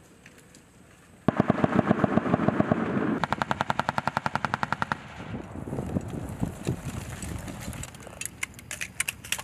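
Automatic machine-gun fire: a long burst starts about a second in, with rapid shots at roughly ten a second, then quieter firing and a few separate sharp shots near the end.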